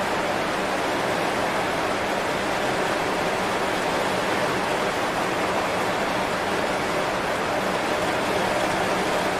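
Heavy rain falling on banana leaves: a steady, even hiss of many drops, with no let-up.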